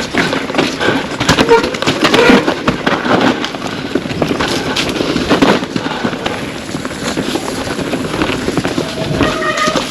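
Pivot Firebird 29 mountain bike clattering down a rough trail: a dense, irregular rattle of knocks as the tyres hit rocks and roots and the bike's parts knock under the impacts, loudest in the first few seconds. There is a short squeal near the end.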